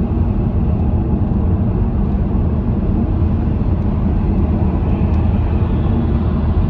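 Steady drone of road and engine noise inside a car's cabin while it cruises along a motorway.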